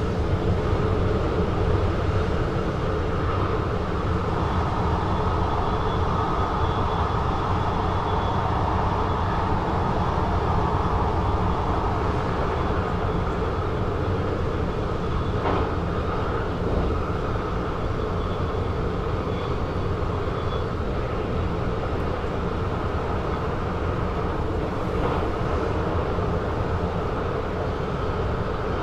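VIRM double-deck electric train running on the line, heard from the driver's cab: a steady rumble of wheels on rail and running gear. A faint high whine comes and goes through the middle, and there is a single short click about halfway.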